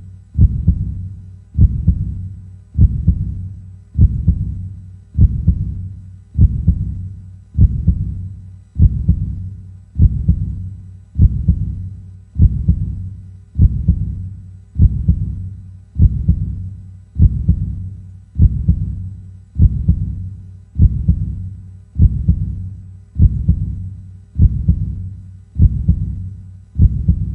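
Heartbeat sound effect: a slow, steady, low pulse of lub-dub beats, about one every 1.2 seconds.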